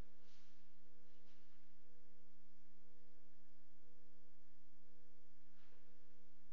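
Steady electrical hum made of a few low tones, with a higher tone that cuts in and out every second or so and a few faint, brief hisses.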